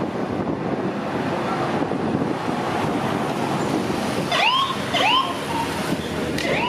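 Motorcade vehicles and police motorcycles passing, a steady rush of engine and tyre noise with wind on the microphone. About four seconds in, two short rising siren whoops sound half a second apart, and a third follows near the end.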